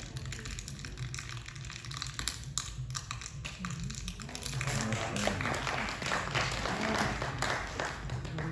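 Crackling and popping of crumpled polythene, the foley stand-in for wood burning in a fire. It grows denser about halfway through.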